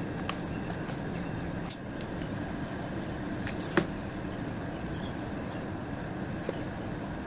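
A few light clicks and taps of cardboard pieces being handled and set against a small cardboard chassis, the sharpest tap about four seconds in, over a steady background noise.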